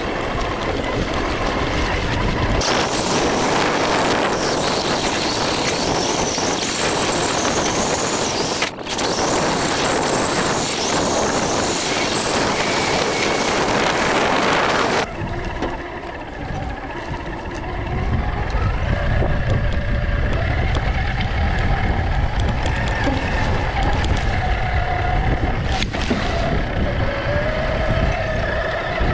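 On-board sound of an RC truck driving over grass and dirt. The first half is dominated by a loud, even rushing noise. In the second half the truck's motor whines, rising and falling in pitch with the throttle, over a low buffeting rumble.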